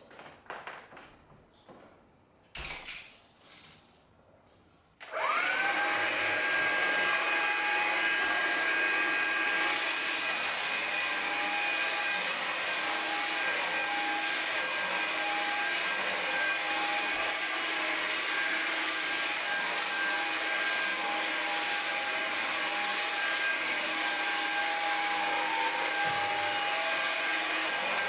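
A few faint ticks of cereal being scattered on carpet, then a Hoover Linx BH50010 cordless stick vacuum switches on about five seconds in. Its whine rises quickly, then runs steadily as it vacuums the cereal off the carpet.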